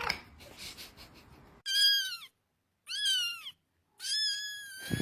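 Cat meowing three times in high-pitched calls: two short rise-and-fall meows, then a longer, drawn-out meow near the end.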